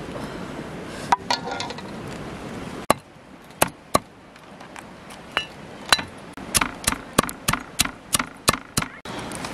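Knife chopping cooked crabs, shells and all, on a wooden chopping board: sharp strikes that start about three seconds in, a second or so apart at first, then quicken to two or three a second.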